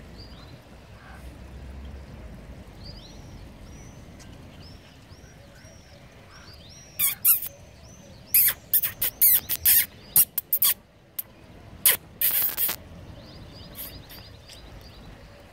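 Egyptian geese giving a series of loud, harsh, breathy calls close by, from about seven to thirteen seconds in, some in quick succession. Before and after, a small bird chirps repeatedly in the background.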